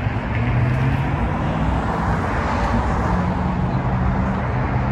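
Steady motor-vehicle traffic noise: an even rushing sound with an engine's low hum underneath.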